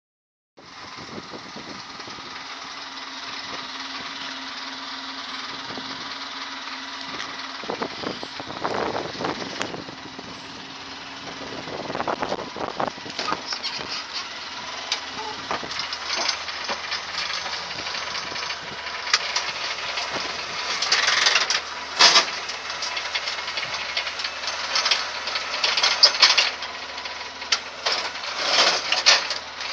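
Polaris Ranger 6x6 utility vehicle's engine idling steadily, with repeated short bursts of rattling and clunking from about eight seconds in.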